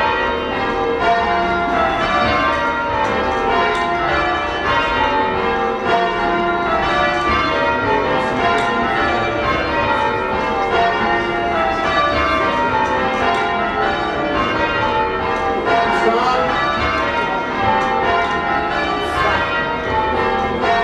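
Church bells being change-rung, full circle, by a band pulling on the ropes, heard from the ringing chamber below the bells. A steady, even stream of strikes whose order keeps shifting, so runs of notes step down and back up the scale without a break.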